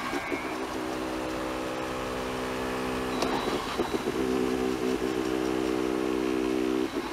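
Homemade Arduino robot lawnmower making a steady pitched hum in two long stretches. The hum breaks off briefly with a click about three seconds in.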